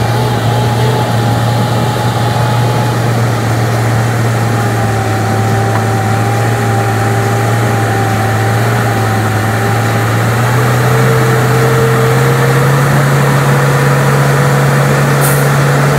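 Kenworth prime mover's diesel engine running at low revs under a heavy load, a steady low drone as it pulls a locomotive on an oversize trailer at a crawl. The engine note rises slightly about two-thirds of the way through.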